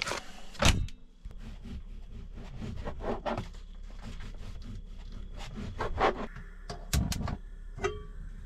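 Kitchen handling noises: a series of knocks and clicks with rubbing and scraping between them as food and utensils are moved about, and a short ringing clink near the end.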